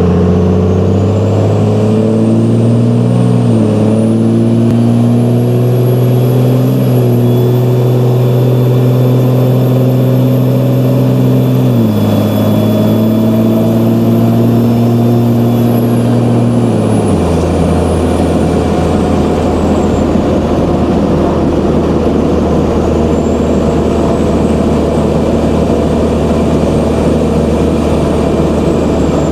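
Dodge pickup's Cummins turbo-diesel engine running with a loud, high-pitched turbo whistle that climbs, holds for several seconds, falls away, then rises again near the end. Under the whistle the engine's note jumps in pitch a few times.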